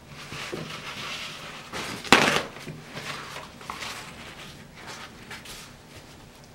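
Paper towel rustling as a sheet is laid over flattened deodeok roots and pressed down by hand to blot off the soaking water, with one sharp knock about two seconds in.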